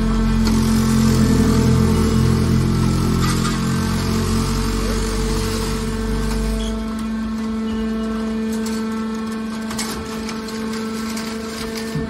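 Hydraulic scrap metal baler running. The hydraulic power unit gives a steady hum, with a heavier low rumble for about the first six seconds while the ram pushes a compressed bale of aluminium scrap out of the chamber, then the sound eases.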